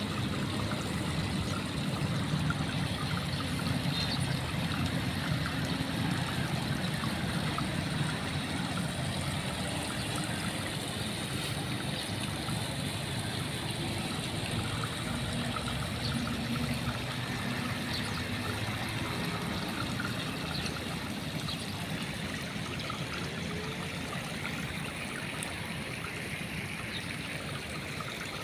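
Running water, a steady trickling rush that eases off slightly towards the end.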